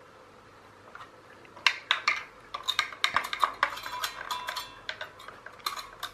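Sharp clinks and rattles of small metal parts being handled and knocked together, a quick irregular run starting about a second and a half in.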